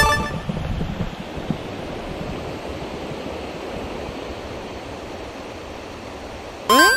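Steady rushing of a fast river run, an even hiss of flowing water. A short pitched sound comes at the very start, and a brief rising pitched sweep comes near the end.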